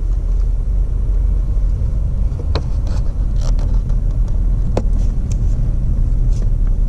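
2001 Toyota Corolla driving, a steady low rumble of engine and road noise heard inside the cabin, with a few faint clicks.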